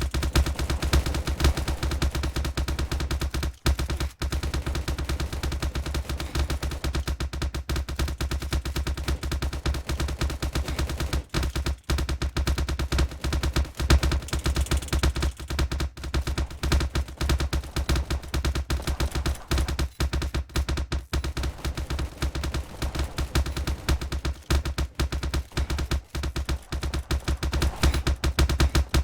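A rapid, irregular train of sharp clicks or claps, clattering almost without pause over a steady low hum, from a source that is not identified.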